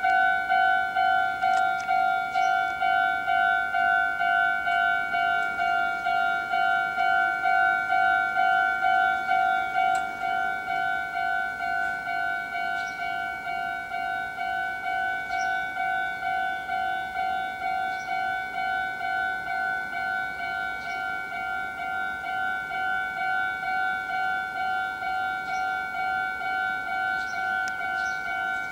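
Japanese level-crossing warning bell ringing in an even electronic ding-ding rhythm, just under two rings a second. It gets a little quieter about ten seconds in.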